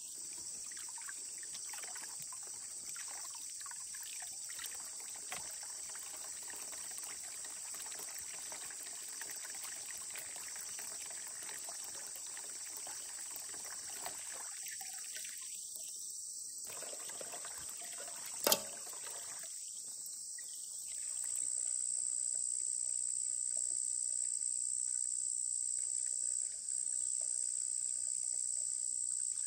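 Water trickling from a bamboo pipe into a wooden trough while crabs are rinsed by hand in it, with small splashes and one sharp knock about two-thirds of the way through. Near the end a steady, high-pitched insect chorus takes over and is louder.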